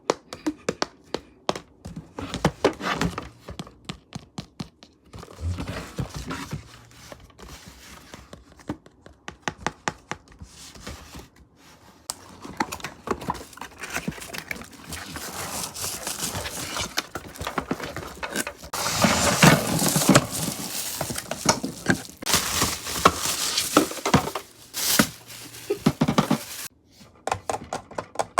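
Hands handling small objects: a run of clicks, taps and knocks, with a long stretch of crinkling and rustling, like packaging, through the second half.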